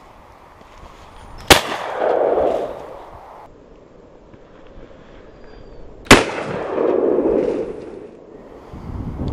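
Shotgun fired twice, about four and a half seconds apart, each loud report followed by a rolling echo that fades over a second or two.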